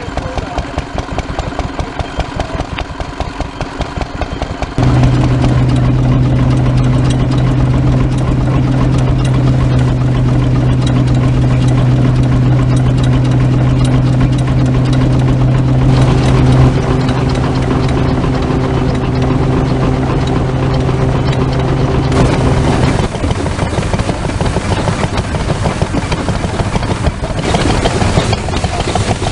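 Vintage stationary engines running, their firing beats coming fast and even. About five seconds in, the sound changes suddenly to a louder, steady low drone, which drops away again about three-quarters of the way through.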